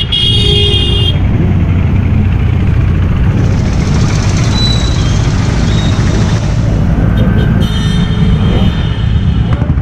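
Motorcycle engines running steadily as a large group of bikes rides slowly together through traffic, with a couple of short high beeps near the start and about eight seconds in.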